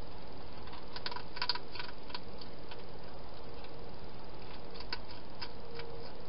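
Wild hedgehog eating at a bowl inside a plastic feeding box: sharp chewing clicks in two short clusters, about a second in and again near five seconds, over a steady hiss.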